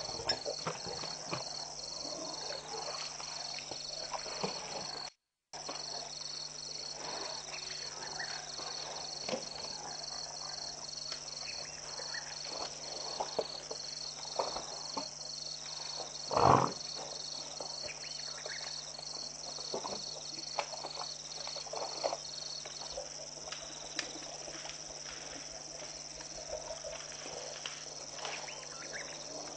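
An elephant browses in a thorny bush, with many small crackles of twigs and leaves as it pulls at the branches. Insects chirp steadily behind it about twice a second, stopping about three quarters of the way through. A single louder, short thump comes a little past halfway, and the sound drops out for half a second near the start.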